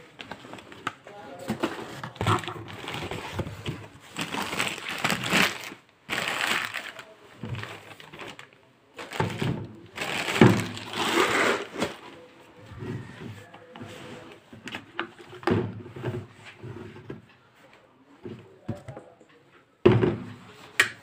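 Cardboard box and plastic wrapping rustling and crinkling in irregular bursts as an electric kettle and its power base are unpacked, with sharp handling knocks, the loudest near the end.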